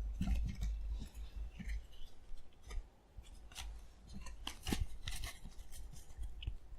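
Trading cards and their packaging being handled, with light scattered clicks and short rustles.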